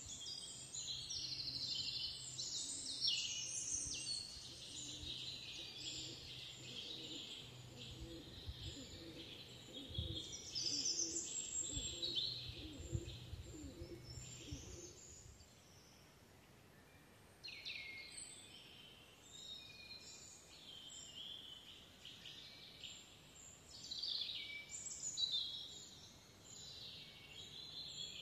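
Several birds singing, a dense mix of chirps and trills that breaks off for about two seconds midway and then resumes, with a faint low rumble under the first half.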